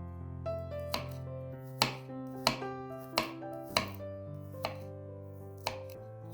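A knife chopping on a cutting board: about seven sharp strikes at an uneven pace, over soft piano background music.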